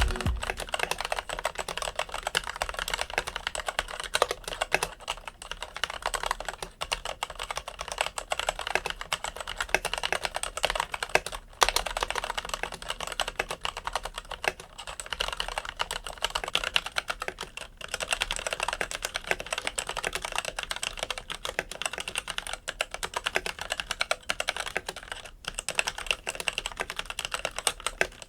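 Typing test on a Logitech Signature K855 mechanical keyboard with TTC Red linear switches: fast, continuous typing, a dense run of key clicks with brief pauses about 11 and 18 seconds in.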